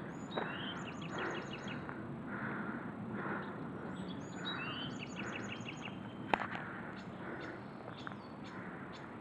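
Footsteps crunching on the forest floor at a steady walking pace. A songbird sings the same short phrase twice, a rising note followed by a quick run of high notes, and a single sharp snap is heard a little after six seconds.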